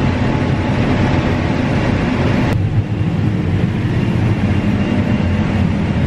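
John Deere combine running while harvesting standing corn: a steady, dense machine drone with a low hum, with a slight shift in the sound about halfway through.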